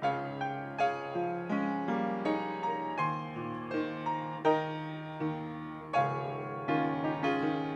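Solo piano playing a slow instrumental piece, single notes struck one after another over sustained chords.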